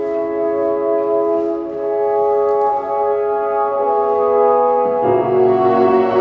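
Instrumental music with long held notes in a slow, classical style, moving to a new chord about five seconds in.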